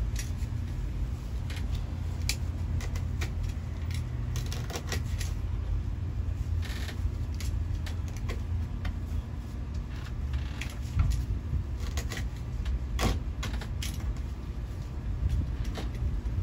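Scattered short clicks and a brief scrape from a utility knife and hands working the edge of artificial turf against a wall, over a steady low rumble.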